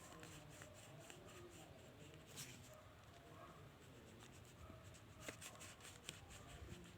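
Faint scratching of a wax crayon rubbed on paper in short one-sided strokes, with a few light ticks.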